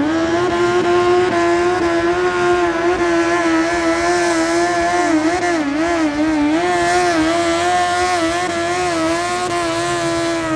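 Small pulling tractor's engine held at high revs under load as it drags the weight sled. The note is steady and wavers briefly about halfway through before settling back.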